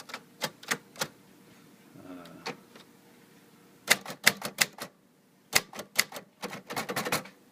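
Royal portable manual typewriter being typed on: sharp typebar strikes against the platen in irregular runs, four in the first second, a quick burst near the middle and a longer run near the end.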